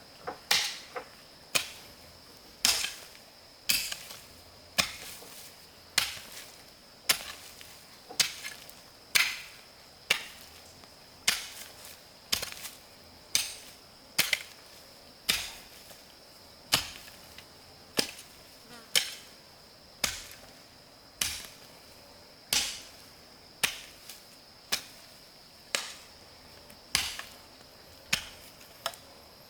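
A hand tool chopping with steady, sharp blows, about one a second, over a steady high insect drone.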